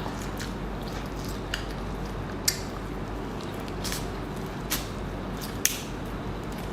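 Close-miked eating of king crab legs: wet squishing and sucking sounds with sharp smacks or clicks about once a second.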